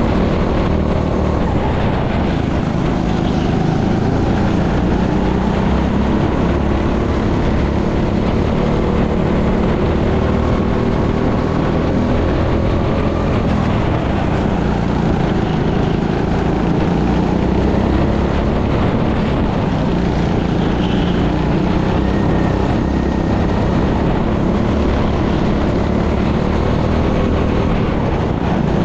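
Racing kart engine running under load, heard on board, its pitch rising and falling as the kart accelerates out of and slows into the corners.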